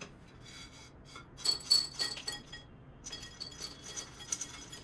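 Light clinks and rattles of kitchenware being handled. A couple of louder clinks come about a second and a half in, and a run of small ticks near the end.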